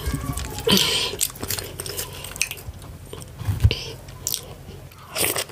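Close-miked mouth sounds of a person eating fufu with ogbono and ewedu soup: irregular wet clicks and smacks of chewing, several a second.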